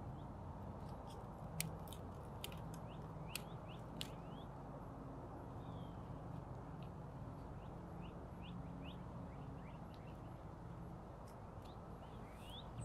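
Birds chirping with many short rising calls over a low, steady background, with a few sharp clicks, most of them in the first four seconds.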